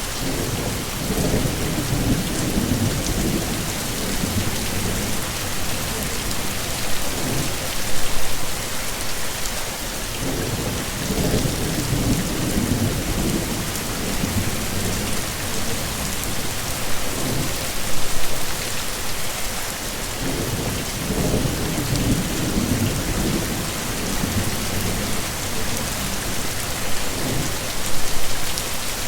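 Steady heavy rain with low rumbles of thunder rolling in three times, about ten seconds apart.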